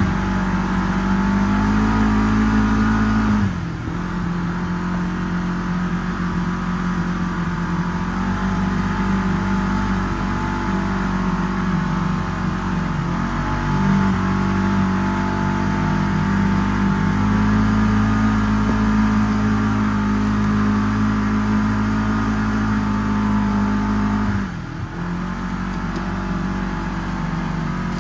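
Segway 1000 UTV engine running at steady throttle while driving, its pitch holding level apart from two short drops, about three and a half seconds in and again near the end, where the revs dip and pick up again.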